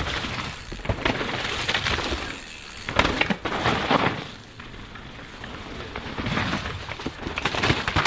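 Downhill mountain bikes ridden hard over rocks, roots and dirt: tyre noise and a rattling clatter of chain and suspension, in three passes that swell and fade.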